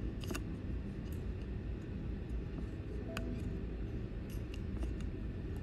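Faint, scattered light clicks of glass seed beads and a beading needle being handled on the loom threads, over a steady low hum.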